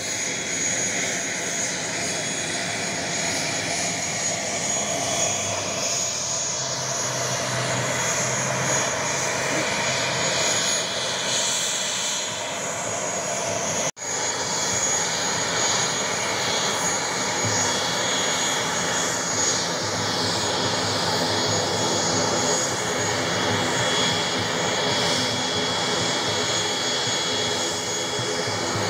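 Airliner engines running steadily, with a high whine over the noise. The sound drops out for an instant about halfway through and comes back the same.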